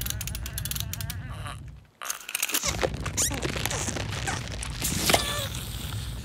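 Cartoon ostrich character crying out in strained, wavering squawks while pinned, over a low rumble. The sound drops out briefly about two seconds in, and the loudest cry comes near the end.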